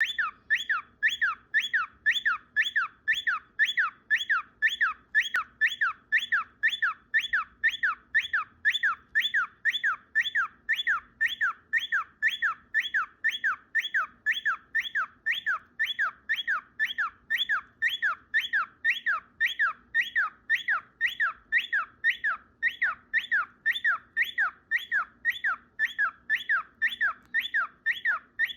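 Cockatiel calling the same short chirp over and over, about two a second, each chirp falling in pitch, with no break for nearly half a minute.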